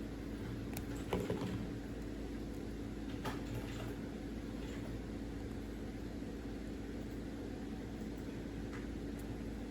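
A few light clicks and rattles, the loudest about a second in and more around three seconds in, over a steady low hum.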